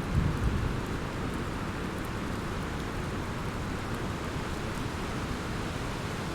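Thunderstorm: steady rain hiss with a low rumble of thunder swelling briefly at the start, then settling into an even low rumble under the rain.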